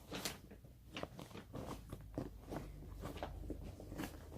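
Handling noise of a fabric travel bag being moved and turned over: irregular rustling with crinkly little clicks.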